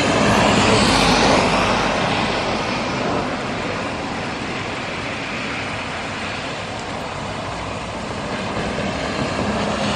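Traffic passing on a wet road: a steady tyre hiss, loudest in the first couple of seconds and slowly fading.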